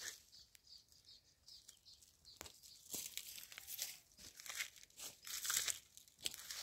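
Footsteps crunching and crackling through dry fallen avocado leaves on bare soil, in irregular steps that are busier and louder in the second half.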